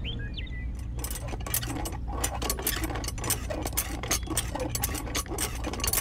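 Miniature model hand pump being worked by its handle: a fast, irregular run of small clicks and rattles that starts about a second in.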